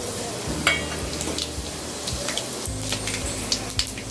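Fennel seeds, with a piece of cinnamon and cloves, sizzling and crackling in hot oil in an aluminium kadai, with scattered small pops throughout. This is the tempering of whole spices at the start of the masala.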